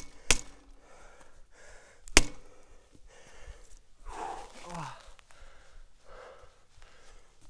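A mountain biker down on the ground after a crash, breathing hard in gasps, with a short groan falling in pitch about four seconds in. Two sharp knocks on the camera, just after the start and about two seconds in, are the loudest sounds.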